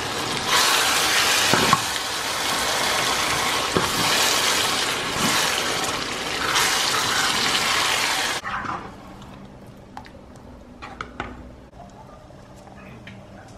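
Water running strongly, rising and falling a little, then cut off abruptly about eight seconds in; a few faint clicks and knocks follow.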